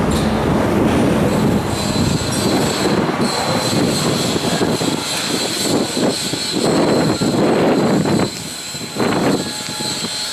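Heavy steel snow chains for a snowplow's tyres clanking and scraping on the concrete as they are handled and fitted, in irregular bursts over a steady high whine.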